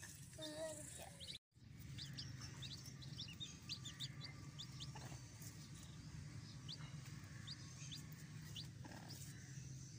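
Young chicks peeping, many short high cheeps scattered through, over a low steady hum. The sound drops out completely for a moment about a second and a half in.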